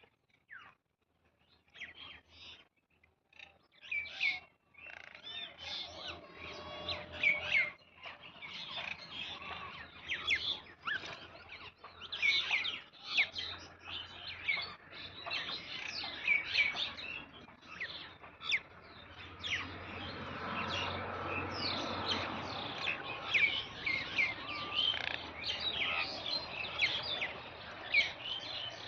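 Many small birds chirping and calling over one another, sparse at first and building to a dense chorus about four seconds in.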